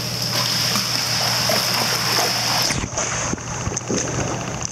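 Shallow pool water splashing and sloshing as a Doberman puppy wades and paws at a floating balloon, over a steady hiss. About three seconds in, the high hiss drops away.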